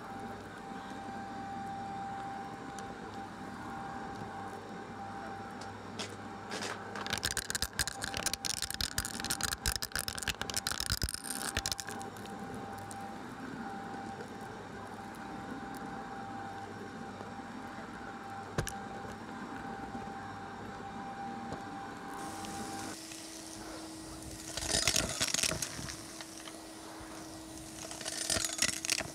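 Shark Lift-Away upright vacuum running over carpet with a steady whine, crackling and rattling for several seconds as it picks up debris. About two-thirds through, the sound switches to a Henry cylinder vacuum with a lower steady hum, and debris rattles up its hose in two short bursts near the end.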